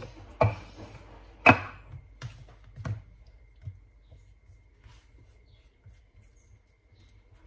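Sharp knocks and clicks of kitchen utensils on a granite worktop, the loudest about one and a half seconds in, as a wooden rolling pin is put down and a knife picked up. After that, faint scraping of a knife spreading soft spread over rolled-out paratha dough.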